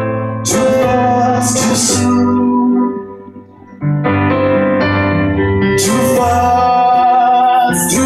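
A man singing live to his own Yamaha stage-piano accompaniment, holding long notes, the last one with a wavering vibrato. The music drops quieter for a moment around the middle.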